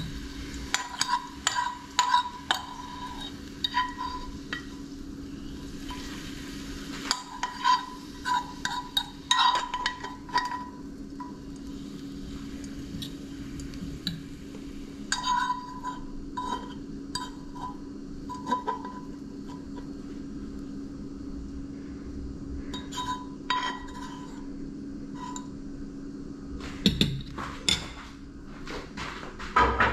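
Metal fork clinking and scraping against a nonstick frying pan and a ceramic plate as fried onions are pushed from the pan onto the plate: irregular clusters of short ringing clinks over a steady low hum. Near the end comes a louder clatter as the fork is set down on the plate.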